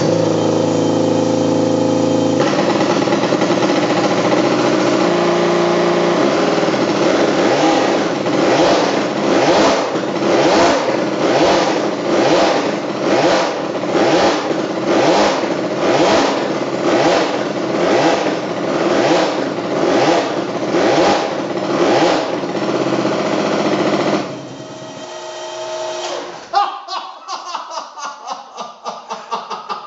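A 1955 Moto Rumi 125cc two-stroke twin with an experimental supercharger runs, then is revved in repeated blips about once a second for some fifteen seconds. It is shut off about 24 seconds in.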